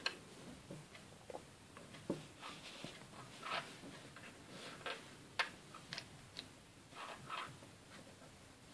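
Faint, scattered clicks and light scraping of small plastic Playmobil lantern parts being handled and pressed together, with one sharper click about halfway through.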